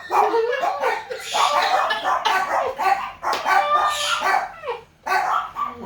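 People's voices making wordless cries, groans and squeals in quick succession, as they react to the burn of spicy noodles.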